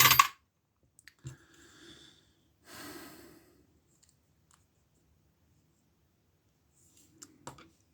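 A short, sharp exhale or sigh at the start, then a softer breath about three seconds in. A few faint clicks come from handling small parts, with near quiet in between.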